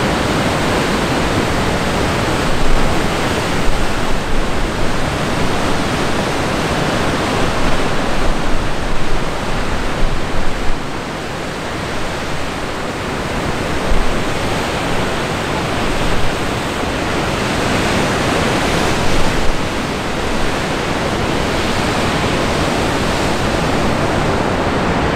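Ocean surf crashing against the rocks at the foot of sea cliffs, a steady roar, mixed with wind gusting across the microphone; the gusts come thickest in the first half.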